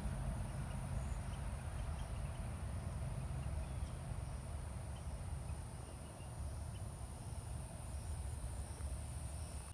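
Crickets chirping in a steady high trill, over a faint low rumble.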